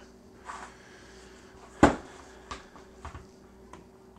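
Handling knocks and small clicks from a plastic power-tool battery pack and a screwdriver being moved about on a cutting mat, with one sharp knock a little under two seconds in, over a faint steady hum.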